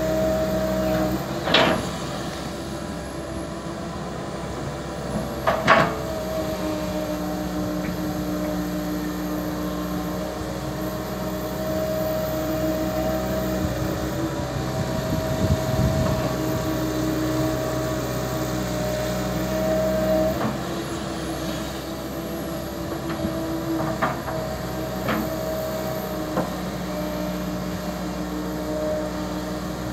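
Komatsu PC200LC hydraulic excavator's diesel engine running steadily as it digs and swings, its pitch shifting a few times under the working load. It is broken by several sharp clanks from the machine.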